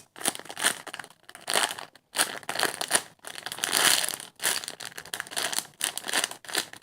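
Plastic crinkling in repeated irregular bursts as a squishy toy is squeezed and handled in its wrapping.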